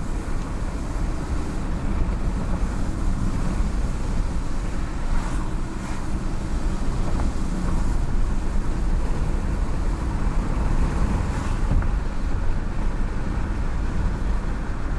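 Steady road and wind noise of a moving car, a deep, even rumble.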